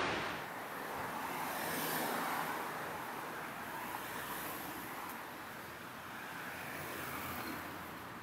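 Distant city traffic: a steady rushing noise that swells and eases gently, with no single vehicle standing out.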